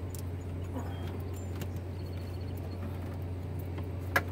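Light metal clicks and knocks as the Honda H22 cylinder head is worked loose and lifted off the engine block, with one sharper knock near the end, over a steady low hum.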